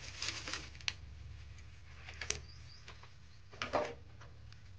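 Dry wooden sticks rustling and clacking as they are pulled from a bundle and laid into a small sheet-metal wood-burning stove: a few sharp clacks and short scrapes, the loudest cluster about three and a half seconds in.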